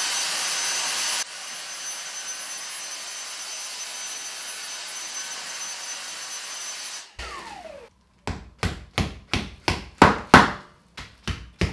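Cordless handheld vacuum running with a steady high whine as it sucks drill dust out of holes in a brick wall; it drops in level about a second in, then winds down with a falling pitch and stops. After a short pause a hammer strikes repeatedly, about three blows a second, tapping wall plugs into the drilled holes.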